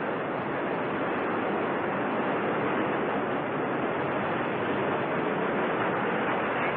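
Delta rocket's main engine and six solid strap-on boosters firing seconds after liftoff, a steady, even rushing roar.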